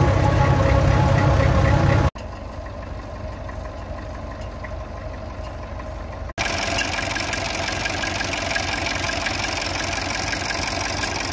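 An old farm tractor's engine running, heard in three abrupt cuts: loud with a deep rumble from inside the cab while plowing snow, then quieter for about four seconds while it pushes a rear snow blade, then steady and louder again for the last five seconds, as at idle.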